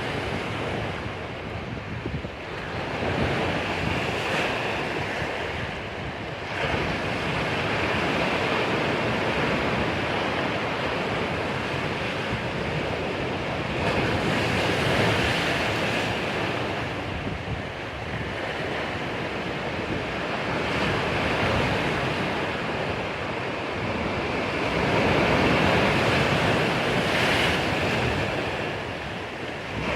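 Sea waves breaking and washing on the shore, the surf swelling and easing every few seconds, with wind buffeting the microphone.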